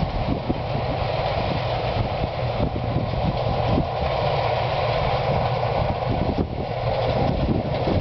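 Claas combine harvester running steadily while harvesting and unloading grain, a constant machine drone heard from across the field. Wind buffets the microphone with an irregular low rumble.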